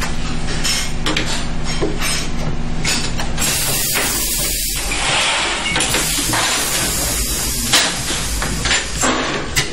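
Silicone label embossing presses working: a steady machine hum that stops about a third of the way in, then several bursts of hissing, with clicks and clatter of metal trays being slid and handled.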